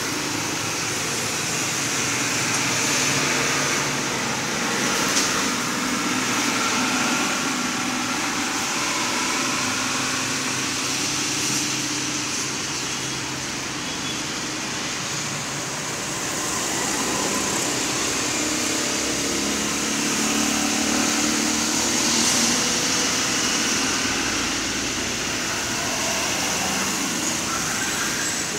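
Road traffic: cars and a motorcycle passing with engines running, over a steady hiss.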